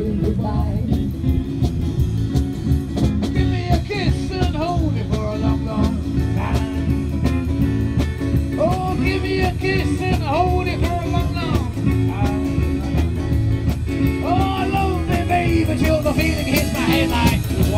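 Live band playing through PA speakers: a singer over guitars and drums, with a steady beat.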